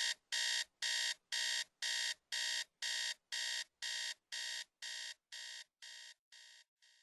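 Electronic alarm beeping evenly about twice a second, each beep short and made of several steady tones. The beeps grow fainter from about halfway through until they are barely audible.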